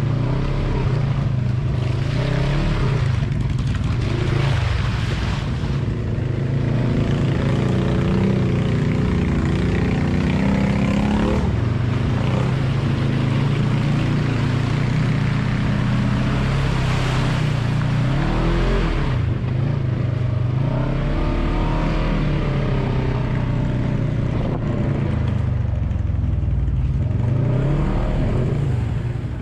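Polaris RZR side-by-side's engine running under load along an off-road trail. Its note rises and falls repeatedly as the throttle is opened and eased, over tyre and trail noise. It fades out near the end.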